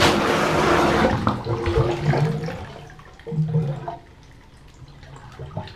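Plumber's Hero air-pressure drain opener fired into a clogged bathtub drain under water: a sudden burst, then water churning and gurgling that dies down over a couple of seconds, with a second surge of gurgling a little after three seconds in.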